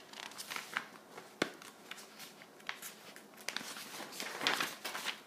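Handling noise close to the microphone: irregular light rustles and small clicks, with one sharp click about one and a half seconds in and a denser stretch of rustling near the end.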